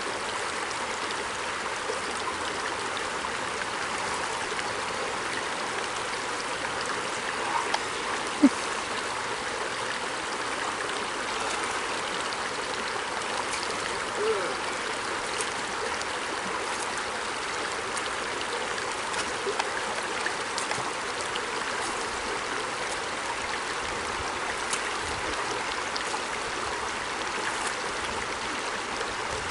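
Shallow stream running over rocks: a steady rushing and trickling of water, with a sharp knock about eight seconds in and a smaller one a few seconds later.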